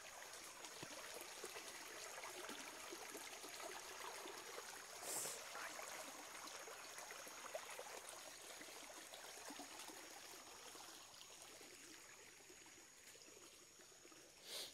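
Faint night ambience: insects keep up a steady high-pitched trill over soft crackling footsteps on leaf litter, with two brief rustles, about five seconds in and again near the end.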